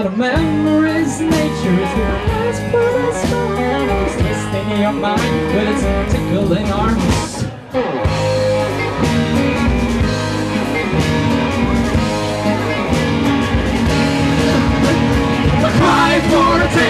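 Live rock band playing, with electric and acoustic guitars and bass guitar, dropping away for a moment about halfway through; a man's singing voice comes in near the end.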